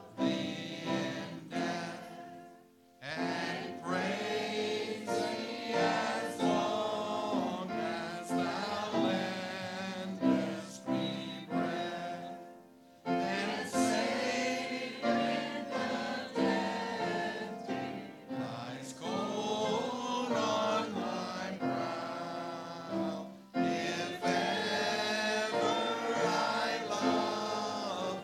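Church congregation singing a hymn together, with brief pauses between lines.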